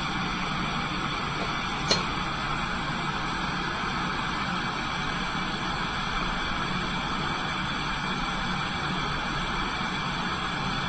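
Lampworking bench torch burning with a steady hiss. A single sharp click comes about two seconds in.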